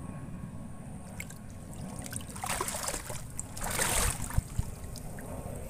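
A small hooked fish splashing at the surface as it is lifted out of the water on a pole line, with water trickling off it; the splashes come in bursts from about two and a half seconds in, with a few dull knocks around four seconds in.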